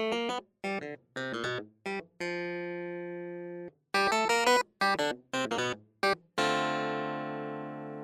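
Background music: short keyboard-like notes in quick groups, with two longer held notes that fade slowly.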